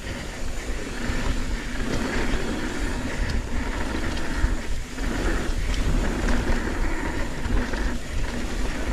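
Mountain bike riding down a dirt trail: tyres rolling over dirt and roots and the bike rattling, heard as a steady noisy rumble.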